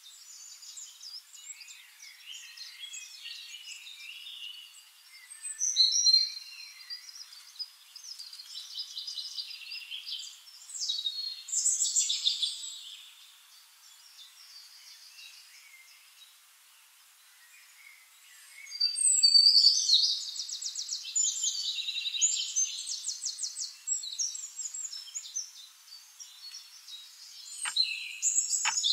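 Birds chirping and trilling in high, fast, rattling phrases, coming and going with a quieter stretch in the middle. A few sharp clicks near the end.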